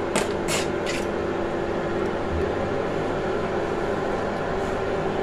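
A spatula scrapes and taps a nonstick pot three or four times in the first second. Then a steady hiss with a constant hum follows as whole spices fry in hot oil.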